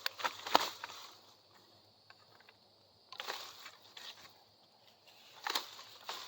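Bamboo being cut and handled: a quick run of sharp snaps and clicks at the start, a brief rustle about three seconds in, and a few more snaps near the end.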